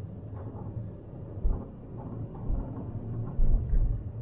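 Car driving on a snow-covered road, heard from inside the cabin: a steady low rumble of engine and tyres, with a few low thumps about a second and a half in and again near the end.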